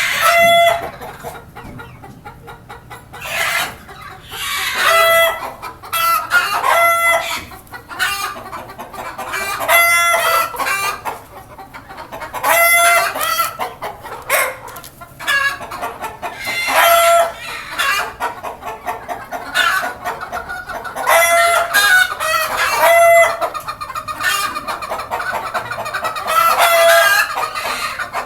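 A flock of desi chickens calling over and over, hens clucking with roosters crowing among them, one call following another every second or two.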